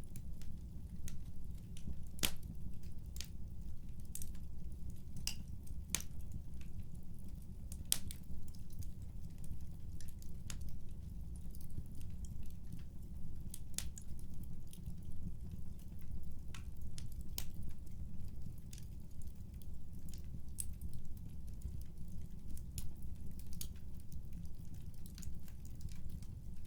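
Fireplace crackling: irregular sharp pops and snaps over a steady low rumble.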